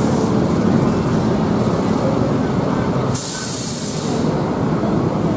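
Diesel coach bus engine running as the bus pulls away at low speed. About three seconds in there is a short burst of compressed-air hiss from the bus's air system, lasting about a second.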